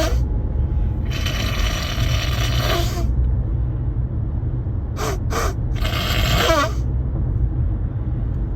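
A man blowing his nose into a handkerchief, his nose blocked by a head cold: a long blow of about three seconds, two quick short ones, then a second long blow, each long blow ending in a falling pitch. A steady low hum runs underneath.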